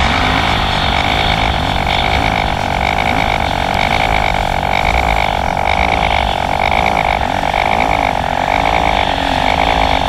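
Jet ski engine running at speed in a steady drone with a pulsing whine, its pitch wavering a little in the second half, over the rush of water under the hull.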